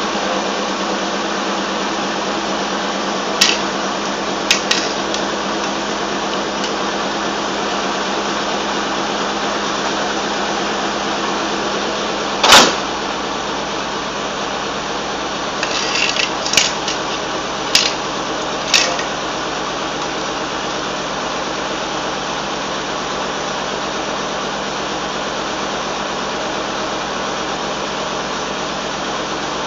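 A 1990 Cadillac Sedan DeVille's V8 idling steadily. Several sharp knocks and clanks come over it, the loudest about twelve seconds in.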